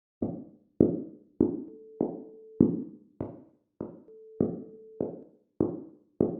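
Footsteps at an even walking pace, about one every 0.6 seconds, each a sharp knock that dies away quickly. A faint steady tone sounds between a few of the steps.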